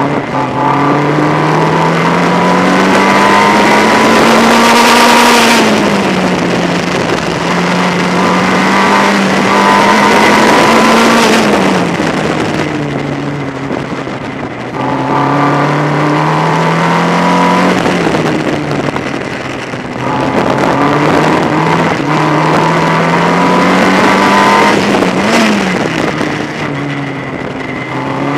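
Formula Ford race car's engine heard onboard at racing speed, its pitch climbing steadily for several seconds and then falling away sharply, four times over, with a rush of wind and road noise.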